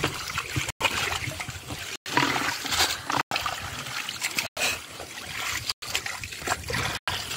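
Shallow muddy water splashing and trickling, stirred by bare feet and hands wading and grabbing. The sound is broken by brief silent gaps about every second and a quarter.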